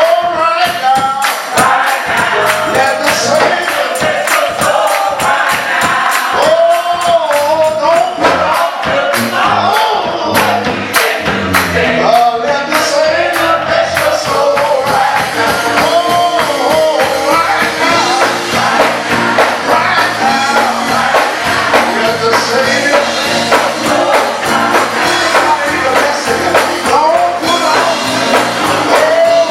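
Gospel choir singing with band accompaniment, a tambourine striking in rhythm, especially in the first half.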